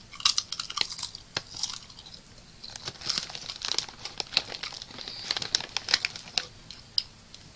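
Plastic snack bag crinkling as it is handled, in a run of sharp, irregular crackles.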